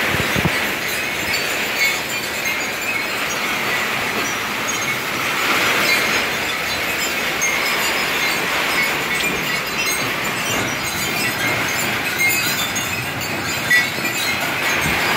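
Heavy rain falling steadily, an even hiss of drops splashing on a paved patio, with scattered sharp ticks of nearby drips throughout.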